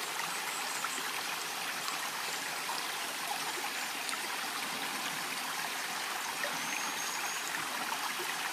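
Shallow stream running steadily over stones and gravel.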